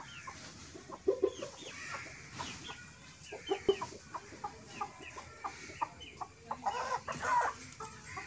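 Chickens clucking, with short calls scattered throughout and a longer, louder call about seven seconds in.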